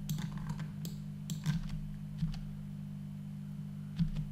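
Computer keyboard and mouse clicks: a handful of scattered clicks and key taps, with the spacebar pressed twice near the end. A steady low hum sits underneath.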